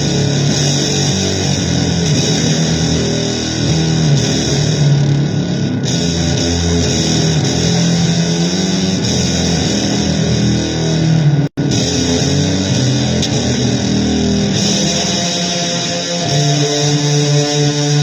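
Loud, noisy electric guitar music in a blues vein, dense and sustained, cutting out completely for an instant about eleven and a half seconds in.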